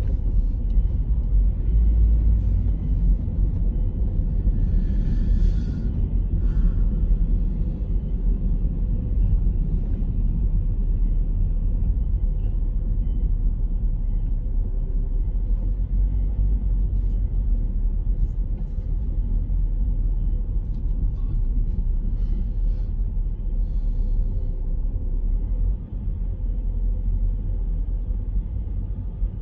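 Steady low rumble of a car driving, heard from inside the cabin, with a few faint clicks and ticks now and then.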